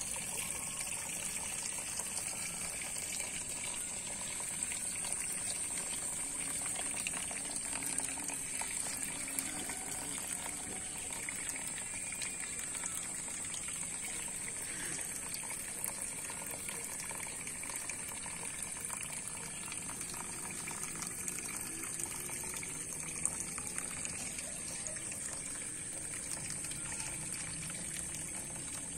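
Steady outdoor ambience: a constant high, thin hiss with a soft rushing, water-like noise underneath, unchanging throughout.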